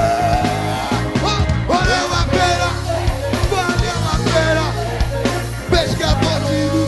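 Live rock band playing with electric guitars and drums, loud and continuous, with a pitched melodic line over a steady low end.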